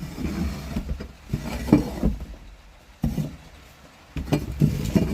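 Clumped wood shavings and chicken droppings being scraped out from under a coop's roost: irregular scraping with several sharp knocks.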